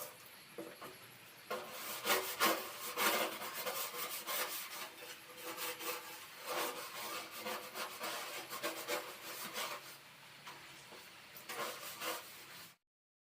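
Repeated hand scrubbing strokes, something rubbed back and forth over a gas stove part during cleaning. The strokes are uneven and start about a second and a half in, then stop abruptly near the end.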